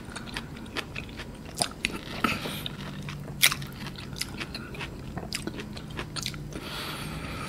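Close-miked wet chewing and mouth clicks of a person eating a slice of ripe Miyazaki mango with the skin on. There is a low steady hum through the second half.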